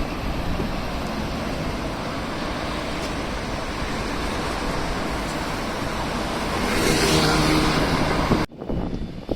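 Strong wind buffeting the microphone over street traffic noise, with a vehicle passing close by near the end, adding a brief humming tone; the sound cuts off suddenly just before the end.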